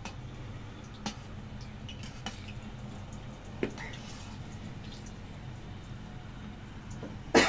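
Occasional light clinks and clicks of dishes and utensils being handled, over a low steady background hum. A loud, sudden sound comes right at the end.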